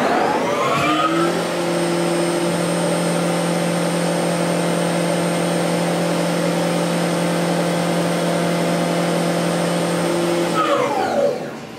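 Tormach 1100MX CNC mill spindle spinning up with a rising whine, running steadily while a chamfer tool cuts the edge of the part under a spray of flood coolant, then winding down with a falling whine near the end.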